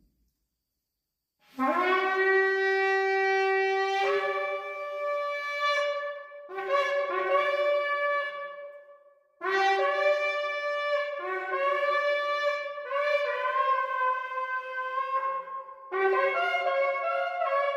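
A 36-inch shofar blown in long notes that step back and forth between a lower and a higher pitch. The first note scoops up into its pitch about a second and a half in, and the blasts break off briefly about halfway before going on.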